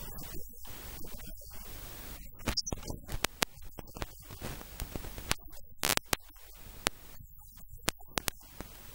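Faint hiss and static broken by irregular crackling clicks.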